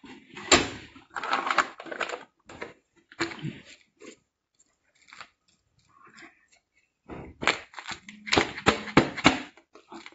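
A vacuum-packed plastic bag being lifted out of a chamber vacuum sealer and handled: irregular crinkling and rustling of the tight plastic with small knocks against the steel machine. It goes quiet for a couple of seconds in the middle, then the crinkling picks up densely near the end.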